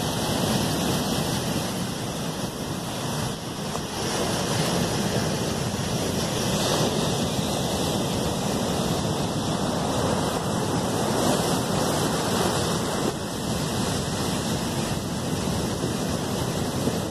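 Ocean surf breaking on the shore, a steady rush mixed with wind blowing on the microphone.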